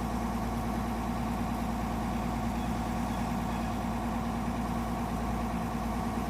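Excavator engine running steadily at an even speed, with no revving or load changes.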